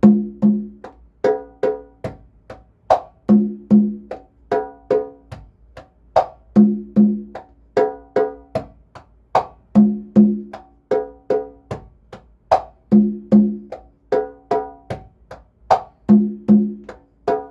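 Congas played by hand in a repeating bachata pattern. Heel, fingertip and muffled slap strokes are followed by two ringing open tones on the low conga, then more fingertip and open-hand strokes. The whole figure comes round about every three seconds.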